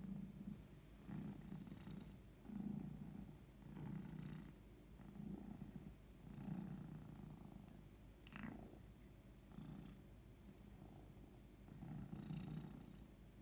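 Domestic cat purring steadily, the low purr swelling and fading with each breath about every second and a bit.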